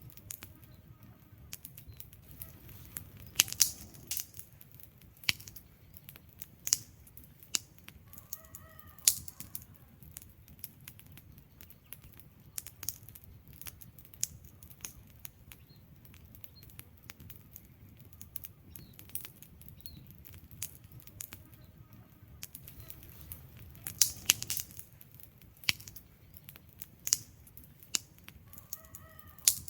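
Wood fire burning, with irregular sharp crackles and pops from the burning logs over a low, steady rush. Two faint chirp-like calls come through, about a third of the way in and near the end.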